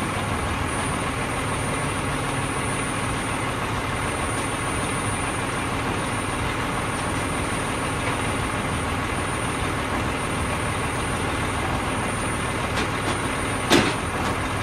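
Steady running of vehicle engines as a Toyota Highlander backs slowly up the upper deck of a car-hauler trailer, over the hauler truck's own running engine. A single sharp knock comes near the end.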